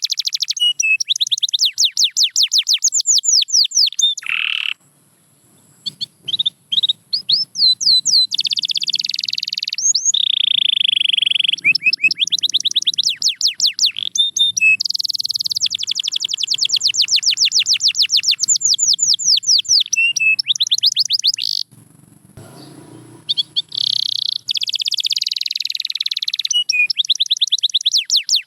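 A domestic canary singing: long phrases of fast, high repeated-note trills, broken by two short pauses, one about five seconds in and one a little after twenty seconds.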